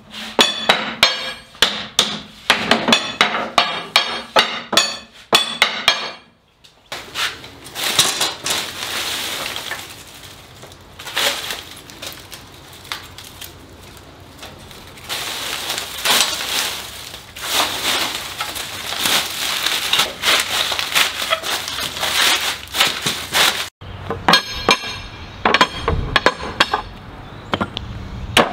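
Hammer ringing on a hoop driver as iron hoops are driven down onto a wooden barrel's staves, roughly three quick metallic strikes a second. The striking gives way to a long stretch of dry wood shavings rustling as they are crammed into an iron fire basket. Hammering on the hoops starts again near the end.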